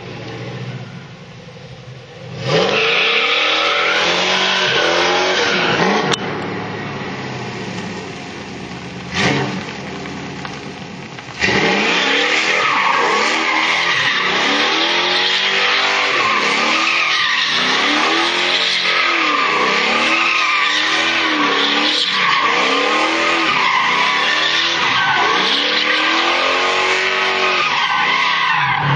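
Car doing a burnout, its engine revving up and falling back over and over, about once a second or so, while the tyres spin and squeal. The sound starts abruptly a couple of seconds in and jumps louder again about eleven seconds in.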